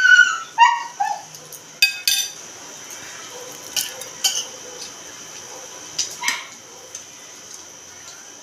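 A few short, high yelps, each falling in pitch, then scattered light clinks and taps of dishes.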